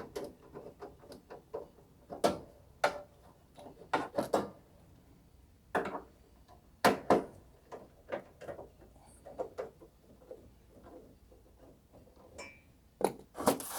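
Irregular clicks, knocks and clunks of a PTAC unit's front cover and screen being handled and pulled off to get at the electric heater.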